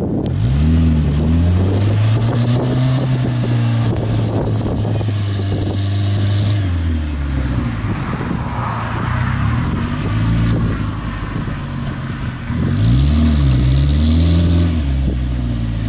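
Compact GMC pickup truck's engine revving hard: the revs climb in the first second and hold, drop back about seven seconds in, then climb again and waver near the end.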